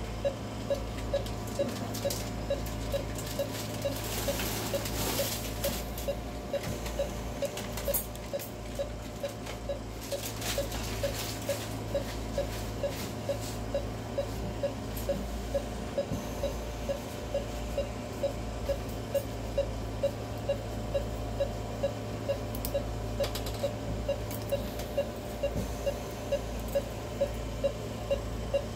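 Anaesthesia patient monitor beeping a short, steady-pitched tone with each heartbeat, about every two-thirds of a second, over a steady electrical hum, with a few faint clicks.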